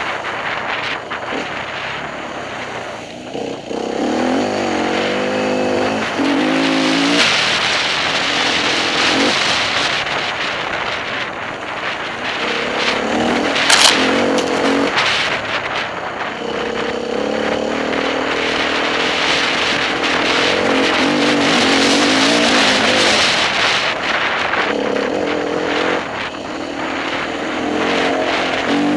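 Enduro motorcycle engine being ridden on a rough dirt trail, its revs rising and falling again and again with throttle changes, over a steady rush of trail and wind noise. A single sharp knock comes about 14 seconds in.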